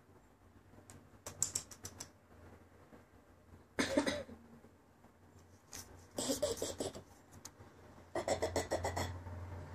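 A person's stifled laughter: four short breathy bursts of quick pulses, a couple of seconds apart.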